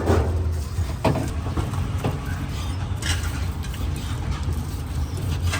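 Steady low engine rumble, like a motor vehicle running close by, with a few sharp knocks spaced about a second or two apart.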